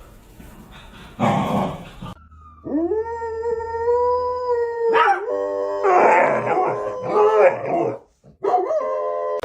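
A dog howling: one long, steady howl beginning about three seconds in, then a run of wavering, broken howls, with a shorter one near the end.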